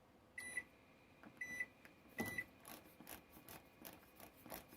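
Toshiba microwave oven's control panel beeping three times, short high-pitched beeps about a second apart, then a quick run of soft clicks from its controls.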